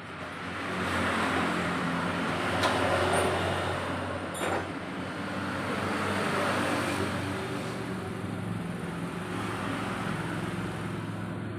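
Motor vehicle engines and traffic noise, swelling and fading twice, with two sharp clicks.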